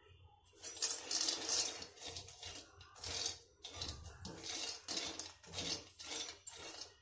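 Raw peanuts being dry-roasted and stirred with a spoon in a metal kadhai: the nuts rattle against the pan and the spoon scrapes the metal in repeated strokes, about two a second, starting about half a second in.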